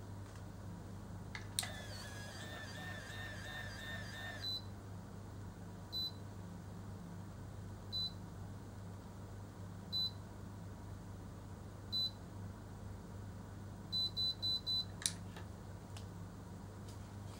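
Automatic rotating hair curler: its motor whirs for about three seconds as it draws a lock of hair into the chamber, then it beeps once about every two seconds while the curl sets. Near the end it gives four quick beeps, the signal that the curl is ready, followed by a sharp click.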